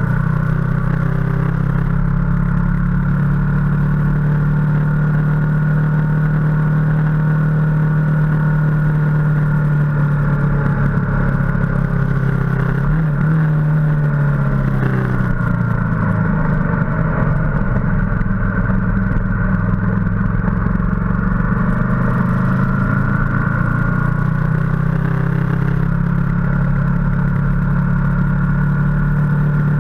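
Ducati motorcycle engine running steadily at cruising speed; its note dips and climbs back a few times in the middle as the speed changes.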